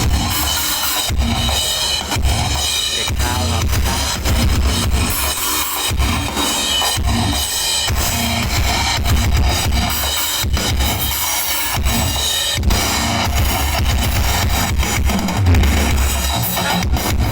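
Drum-led music with heavy, sustained bass, played loud through a large sound system.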